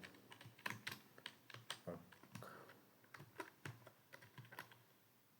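Computer keyboard being typed on: irregular key clicks, several a second, thinning out and growing fainter near the end.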